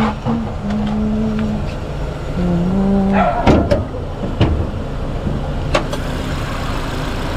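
A Renault Duster Oroch engine idling steadily. Sharp knocks come near the start and again about three and a half and four and a half seconds in, as the chained cone is moved and the bonnet is released and lifted.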